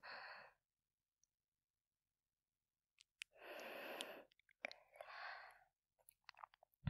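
A woman breathing softly right at the ear on a binaural dummy-head recording: after a few seconds of silence, two slow breathy exhales about three and four and a half seconds in, with faint mouth clicks around them.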